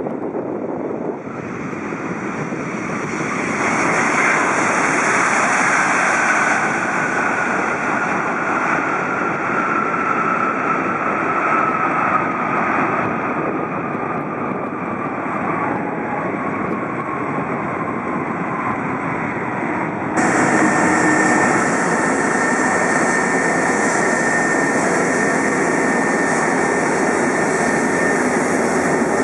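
McDonnell Douglas MD-11's three General Electric CF6 turbofans on the landing rollout: the noise swells about four seconds in as reverse thrust is applied, then a whine slides slowly down in pitch as the engines spool back. About twenty seconds in the sound changes abruptly to the engines heard close up at a steady idle with a high whine.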